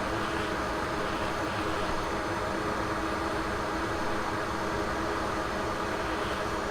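Hot air rework station blowing a steady hiss of hot air at high airflow onto a USB-C charging port, heating its solder to free it from the board.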